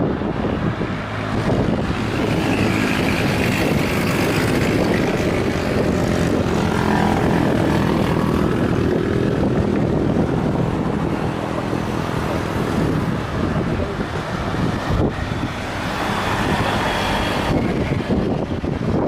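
Boeing jet airliner's engines running steadily on its landing approach, a loud continuous noise with a faint shifting whine.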